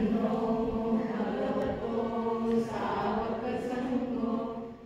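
A group of voices chanting together in unison on long held notes: Buddhist devotional chanting. It dips briefly near the end.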